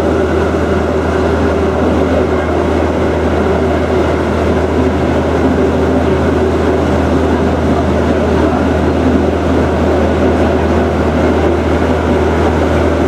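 A river ferry's engine running steadily during the crossing: a constant low drone with a steady hum above it, heard on board.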